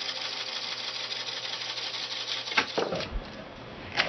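Motorized film rewinder running steadily with a fast rattle, winding Super 8 film through a hand-held cleaning cloth. It stops about two and a half seconds in, followed by a few light clicks and knocks.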